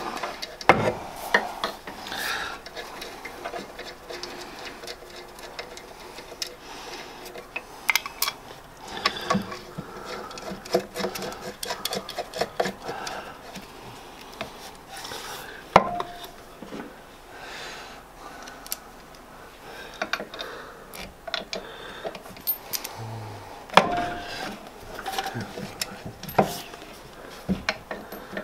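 Irregular metal clinks, knocks and rubbing as a lathe's electric motor is handled against the lathe's metal body and mounting bracket.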